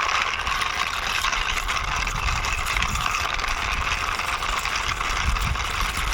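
A toy cement mixer truck pushed along by hand, its wheels giving a low uneven rumble from about two seconds in, over a steady rushing background noise.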